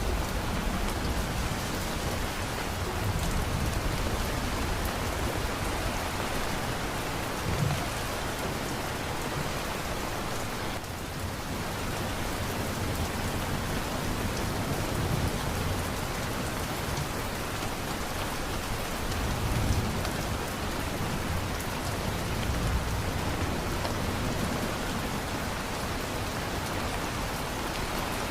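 Steady heavy rain falling, with low rumbles of thunder swelling now and then, about 8 and 20 seconds in.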